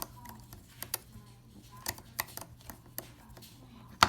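Small, sparse clicks and taps of a small Phillips screwdriver against the plastic shell of a Toyota Prius smart key fob while its tiny screws are put back in, with the loudest click near the end, over a faint steady hum.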